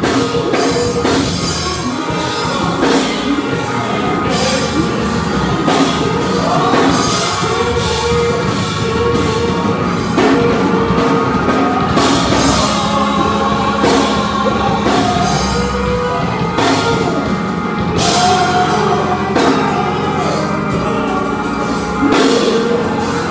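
Live gospel praise music: several singers on microphones, led from the pulpit, singing over a band with drums, loud and continuous.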